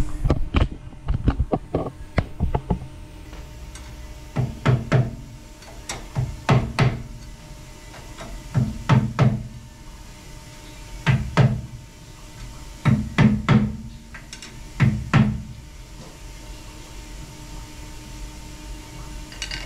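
A mallet tapping a lineup bar set in the alignment holes of Darton cylinder sleeves in an aluminum LS block, giving the sleeves a final turn to square them up. A quick run of taps first, then knocks in twos and threes about every two seconds.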